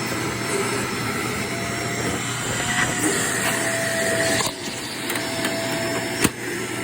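Vacuum cleaner running on stairs with a steady hum. The sound dips briefly a little past halfway, and there is one sharp knock near the end.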